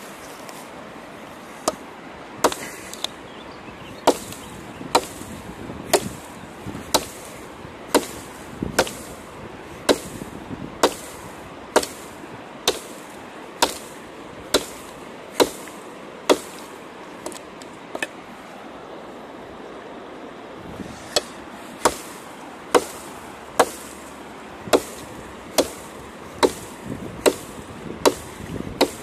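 Large Koster Survivor knife chopping into a dead log: sharp woody strikes at a steady pace of about one a second, stopping for about three seconds past the middle, then starting again. A steady hiss of background noise runs underneath.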